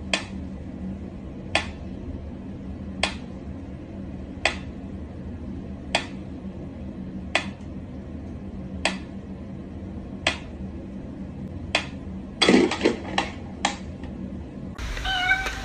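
Mechanical pendulum metronome ticking slowly and evenly, one sharp tick about every second and a half, over a low steady hum. About twelve and a half seconds in comes a brief clatter of several louder knocks.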